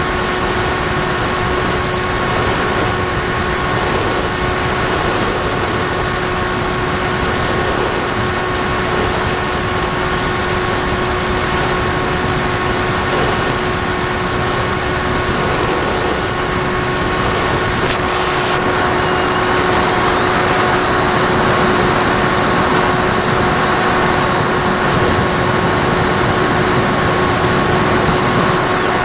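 Firstar 2000 FPV model plane in cruising flight, heard from its onboard camera: a steady motor and propeller whine over constant wind rush. A thin high tone stops abruptly about two-thirds of the way through.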